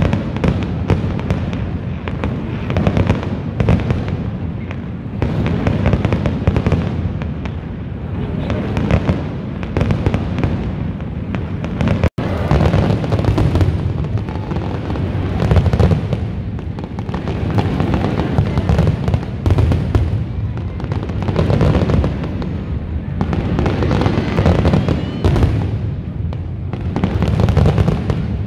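Fireworks display: a dense, continuous barrage of shell bursts and crackle with heavy booms, going on without pause. There is a momentary break about twelve seconds in where the recording cuts.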